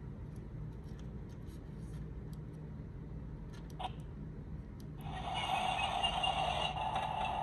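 Hallmark Jawa Sandcrawler Christmas ornament: light clicks and taps as its button is handled, a sharper click just before four seconds in, then about five seconds in a sound effect starts playing from its small built-in speaker, thin and tinny, and carries on steadily.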